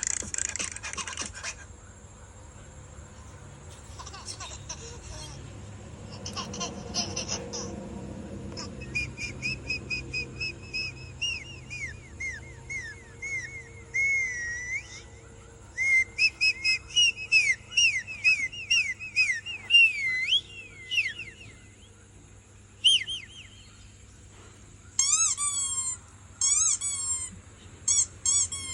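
High-pitched bird-like whistling: runs of quick rising and falling whistled chirps, with short repeated whistled phrases near the end.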